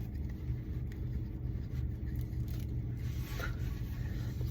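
Faint rustling and scraping of a drinking straw's wrapper being picked at, over a steady low rumble.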